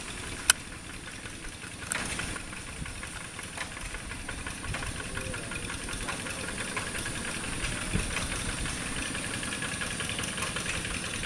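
Quick G1000 two-wheel hand tractor's single-cylinder diesel engine running steadily with a fast, even chugging as the tractor drives its cage wheels through paddy mud. A sharp click comes about half a second in.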